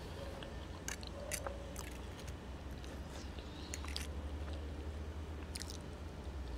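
A person eating enfrijoladas: chewing, with a utensil clicking and scraping against a plate as the food is cut and picked up. Several sharp clicks come at irregular moments over a low steady hum.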